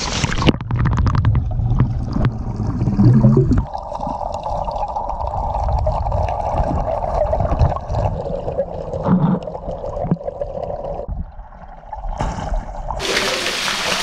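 Underwater sound from an action camera submerged in a pool below a waterfall: muffled churning and gurgling of water. The sound goes dull about half a second in as the camera goes under and clears again near the end as it comes back up.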